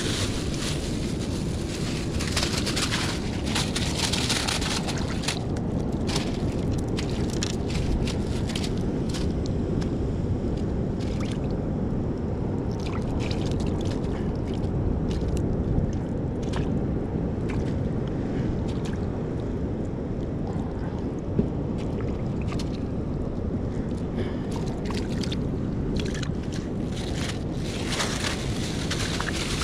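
Steady low rush of sea surf and wind at a rocky shore, with crinkling of a plastic bag being handled a couple of seconds in and again near the end.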